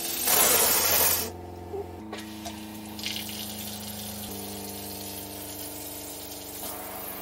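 A 12-volt water pump hums steadily while water runs from a pull-down faucet into the sink, with a loud rush of water in the first second. The pump's hum shifts pitch a few times. It keeps running because it is filling the water heater.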